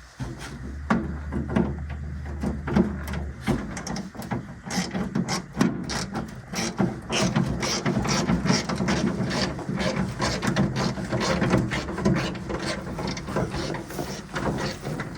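Rapid, irregular mechanical clicking and light metallic rattling, with a low steady hum under it for the first few seconds.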